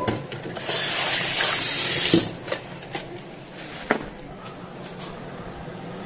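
Kitchen tap run into a stainless steel sink for about a second and a half, shut off, then a few sharp clinks and knocks of utensils and dishes being handled.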